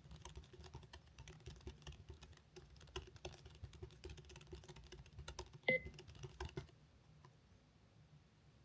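Computer keyboard under very fast touch typing, a rapid run of key clicks with one louder, ringing clack about six seconds in. The typing stops about seven seconds in.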